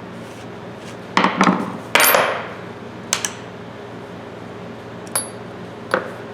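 Small steel parts of a Walden 1160 ratchet clinking as the ratchet head is taken apart. A short clatter comes about a second in, then the loudest, ringing metallic clink at about two seconds, and single clicks near three, five and six seconds.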